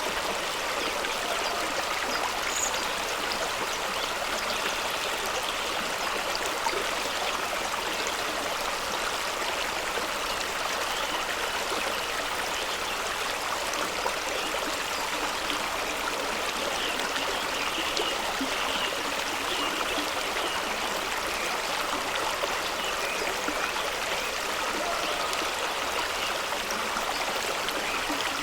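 Fast-running stream spilling over rocks, a steady rushing and splashing of water with no let-up.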